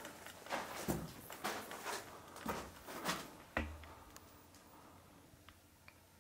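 Footsteps of a person walking, about two steps a second, ending with a heavier thud about three and a half seconds in; after that it is quiet but for a few faint ticks.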